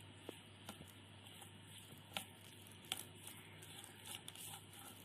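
A spoon stirring rice flour and hot water in a metal bowl: faint, irregular clicks and scrapes of the spoon against the bowl over a low steady hum.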